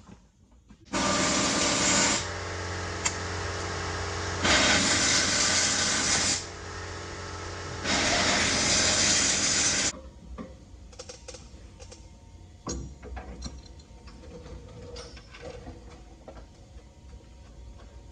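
Air impact wrench running in three loud bursts over the first ten seconds or so, easing slightly between bursts, then stopping, leaving a few light knocks.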